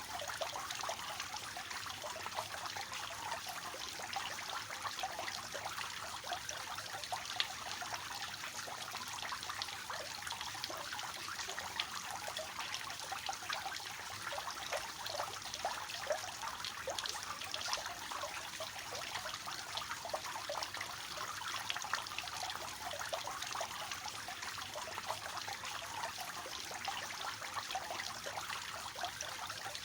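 Water from a three-tier cascading fountain falling and splashing steadily, a soft even trickle and patter of many small splashes.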